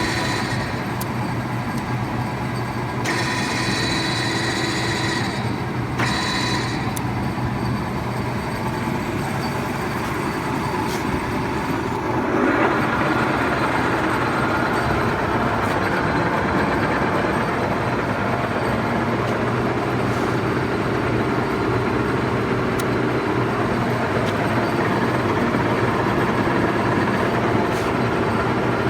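1973 1M63 screw-cutting lathe running idle with no cut: spindle and gearbox turning with a steady hum and whine. The sound shifts a few seconds in, then grows louder and fuller about twelve seconds in.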